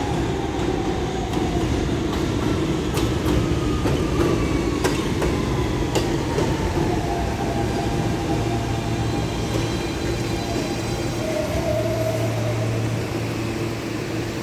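R160B subway train with Siemens propulsion pulling into a station and slowing: the propulsion whine slides down in pitch over a steady rumble of wheels on rail, with a few sharp clicks from the track.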